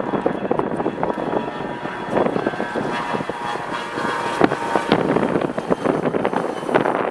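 Jet airliner engine noise: a loud, steady rush with faint whining tones, rising and falling in level throughout.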